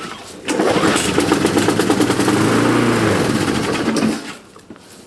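Petrol lawnmower engine cold-started after long storage: it catches about half a second in and runs for roughly three and a half seconds, its pitch rising and falling, then stops about four seconds in.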